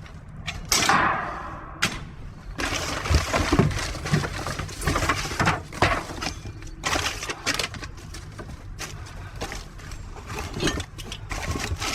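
Rummaging through a box of discarded items: irregular knocks, clatters and rustles as things are shifted and pulled about, with a longer scraping slide of about a second near the start.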